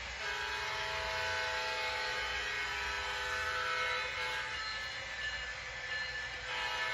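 MTH HO-scale GE ES44AC model locomotive's Proto-Sound 3.0 sound system sounding its diesel horn: one long blast of about four seconds, then a second blast starting near the end, over a low steady rumble.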